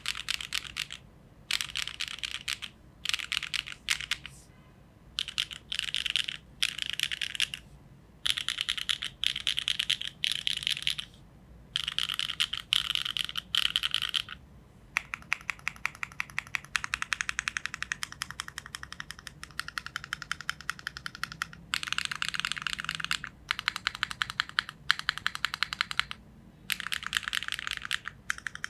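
Neo70 mechanical keyboard with HMX Emo switches on a gasket-mounted carbon fibre plate and GMK keycaps being typed on fast. Bursts of rapid keystroke clicks come with short pauses between them, and the typing runs longer and more continuous from about halfway through.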